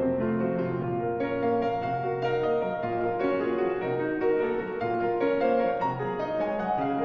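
Background piano music: a steady stream of sustained notes.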